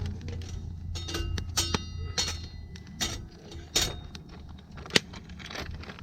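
A series of sharp metallic clinks and knocks, several ringing briefly, over a steady low hum.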